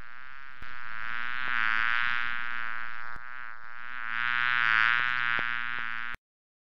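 Bee buzzing: a steady buzz that wavers slightly in pitch and swells louder twice, starting abruptly and cutting off suddenly near the end.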